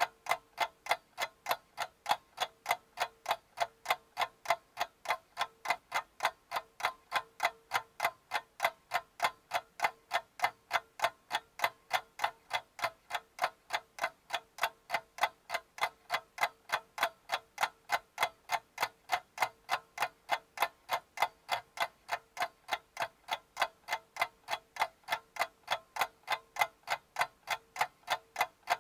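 A clock ticking steadily in quick, even ticks, with a faint steady hum under it.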